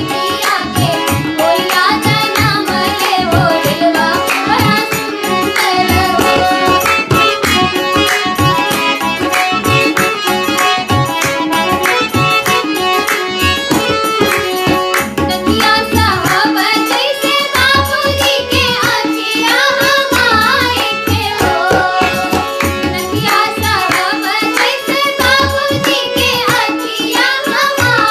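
A girl singing a Bengali song, joined at times by a boy's voice, to harmonium and tabla accompaniment, with quick, continuous tabla strokes and held harmonium notes beneath the voices.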